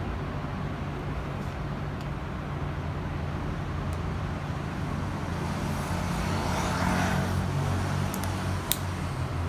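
Steady low motor hum, with a swell of rushing noise about six to seven seconds in and two light clicks near the end.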